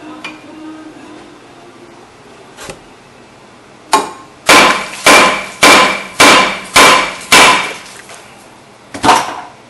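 A badly rusted 2006 Ford Escape brake rotor being struck with a steel bar to knock it loose from the hub. There are a couple of lighter knocks, then six loud, ringing metal-on-metal blows a little over half a second apart, and one more blow near the end.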